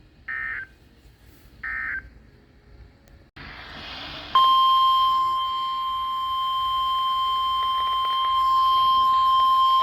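NOAA Weather Radio broadcast: the last two short data bursts of the end-of-message signal, then a hiss comes up at about three seconds. About a second later the steady 1050 Hz Weather Radio alert tone starts and holds loudly, the signal that a new warning follows.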